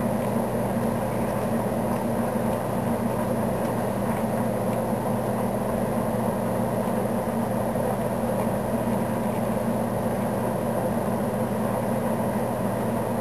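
A steady low mechanical hum over a constant rumbling noise that does not change; no cannon shot or other sudden sound.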